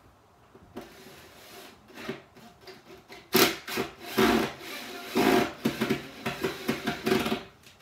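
Metal cavity-wall anchor bolts being clamped tight into the wall board with their hand setting key: a series of rough scraping, rasping strokes starting about three seconds in.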